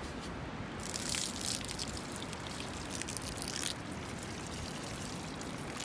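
Water pouring and trickling, heaviest from about one second in until nearly four seconds in, then a lighter trickle.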